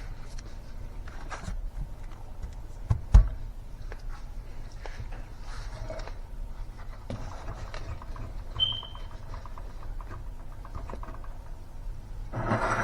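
Kitchen handling noises of bagging food: scattered light clicks and rustles, with a single low thump about three seconds in. A short high beep sounds about two-thirds of the way through, and there is a louder rustle near the end.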